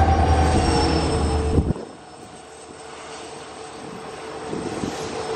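WDP-4D diesel locomotive's EMD two-stroke V16 engine running loud as it passes close by, falling away abruptly a little under two seconds in. Then the coaches roll past with a softer rush of wheels on rail that slowly grows louder.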